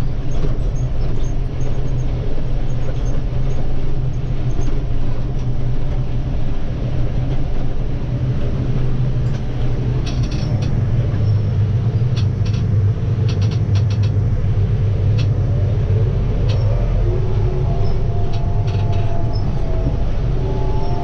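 Kioti PX9020 tractor's diesel engine running steadily under load while pulling a Vermeer round baler through a hay field. A few light clicks and rattles are heard around the middle.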